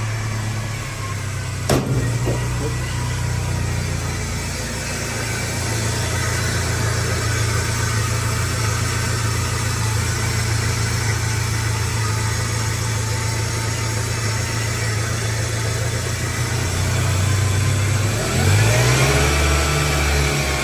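Toyota 2RZ-FE four-cylinder engine idling steadily while it warms up, with one sharp click about two seconds in. Near the end the engine revs briefly, rising in pitch.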